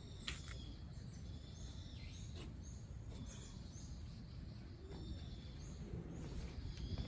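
Small birds chirping, short high calls repeated every second or so, over a steady low rumble. A few sharp clicks, the first less than a second in.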